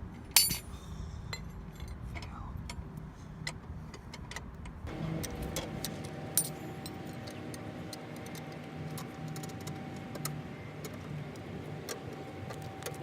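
Irregular small metallic clicks and clinks of a car jack and hand tools being worked, with one sharp ringing metal clink about half a second in.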